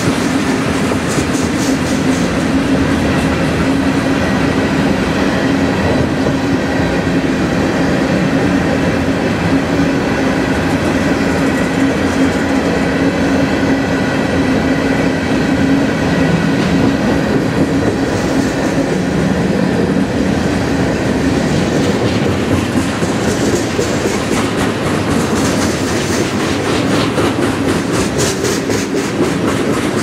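Covered hopper cars of a long freight train rolling steadily past, with wheels clacking over rail joints and a steady low hum from the running gear.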